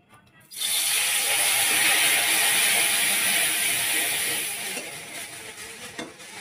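Wet ground spice paste dropped into hot oil in a cooking pan, sizzling loudly from about half a second in and dying down over the last two seconds.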